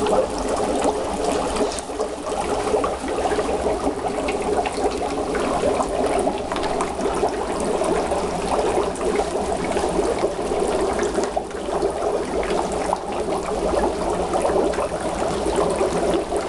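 Dry ice bubbling steadily in a utility sink full of water, the carbon dioxide gas boiling up through the water in a continuous dense gurgle.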